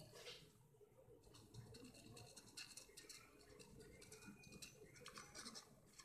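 Faint scratching and clicking from a servo-tilted handmade wooden maze board as it moves, with a brief thin whine a little past four seconds.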